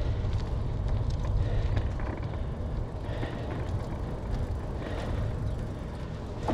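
Wind buffeting the microphone of a moving bicycle, a steady uneven rumble over the hiss of tyres on the road, with a few faint ticks.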